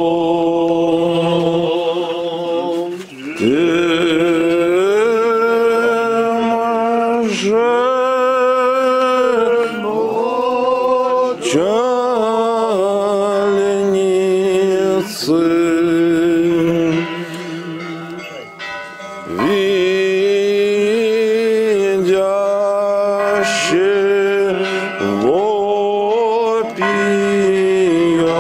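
Male voices singing a slow Old Believer church chant, long held notes sliding from pitch to pitch. The singing dips briefly about three seconds in and goes quieter for a moment past the middle.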